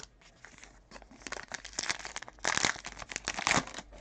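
Wrapper of a 2020 Topps Allen & Ginter baseball card pack being torn open and crinkled by hand, a run of crackling with the loudest bursts about two and a half and three and a half seconds in.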